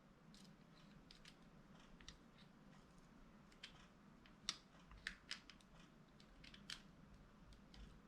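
Faint, scattered small clicks and taps of tools and plastic parts as a stuck part inside a Nintendo Switch Joy-Con is worked loose, loudest about halfway through.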